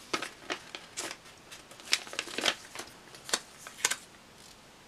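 Paper sticker sheet being handled and flipped, with a sticker worked off it: a quick run of sharp paper rustles and crackles that stops about four seconds in.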